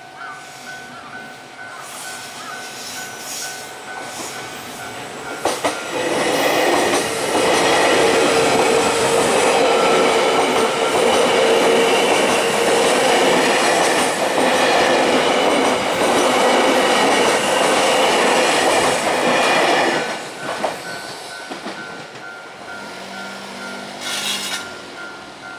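Japanese level-crossing alarm bell ringing in a steady fast repeating ding. About six seconds in, a train rushes through the crossing for some fourteen seconds and drowns out the bell, which rings on after the train has passed.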